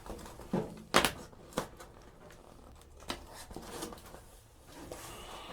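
A sound-dampening pad being handled and worked by hand: low rustling with a few sharp knocks or taps, the loudest about a second in.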